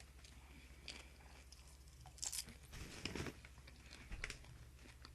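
Wasabi-flavoured microwave popcorn being bitten and crunched, with the bag rustled, in a few short quiet bursts over a low steady hum.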